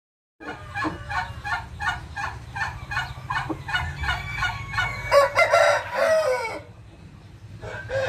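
Chickens clucking in a steady rhythm, about three clucks a second, then a rooster crowing once, a call of about a second and a half that falls away at the end, about five seconds in. A low steady hum runs under the clucking and stops after the crow.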